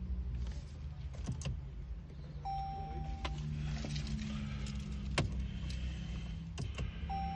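Car with the ignition switched on: a steady low hum, several sharp clicks, and a short electronic beep about two and a half seconds in, repeated near the end.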